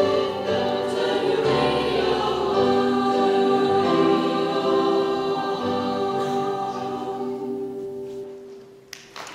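Women's choir singing sustained chords, the final held chord fading away near the end as the song finishes.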